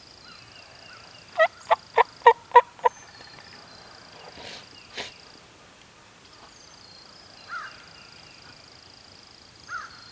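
Wild turkey calling: a quick run of six loud, evenly spaced notes about a second and a half in, followed by a few fainter short calls.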